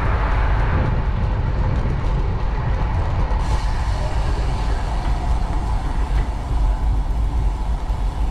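City street traffic and wind heard from a moving bicycle: a steady low rumble under road hiss, the hiss turning brighter about three seconds in.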